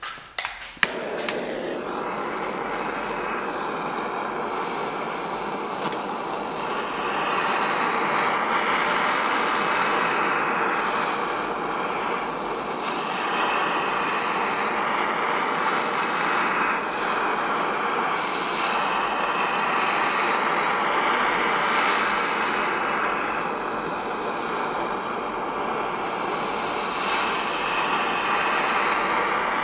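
Snap-on refillable butane torch: a few clicks as it is lit, then its flame hissing steadily, heating the motorcycle engine's front cover around the crankshaft bearing to free the cover without a puller.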